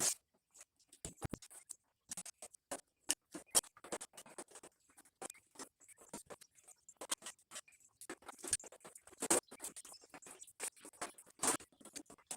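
Irregular light clicks and taps of scrap metal being handled and cut while air conditioners are dismantled, with a few louder knocks about three and a half, nine and eleven and a half seconds in.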